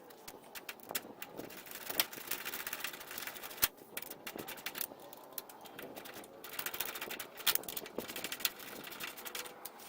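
Irregular sharp metallic clicks and scrapes of small hood-latch hardware (washers, nuts, latch parts) being handled and fitted by hand, with a few louder knocks at about 2 and 3.5 seconds in.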